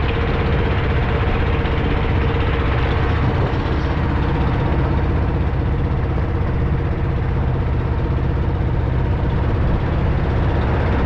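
Boat engine running steadily at a constant pace, with a low drone throughout.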